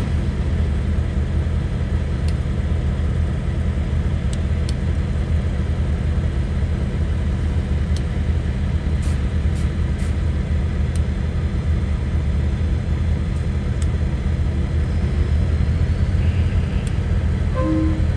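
Heavy diesel engine idling steadily, a low rumble, with a few faint metallic clicks scattered over it.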